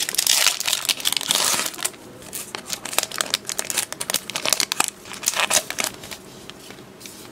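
Foil trading-card booster pack wrapper torn open and crinkled by hand: a dense, loud crinkling for about the first two seconds, then lighter, scattered crinkles and rustles.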